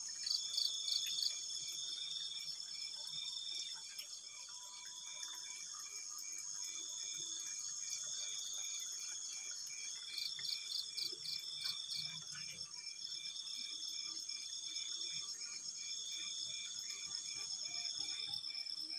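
Night chorus of crickets and other insects: several overlapping high-pitched songs, a trill repeating in segments of about a second, a quick even chirping and a steady very high buzz.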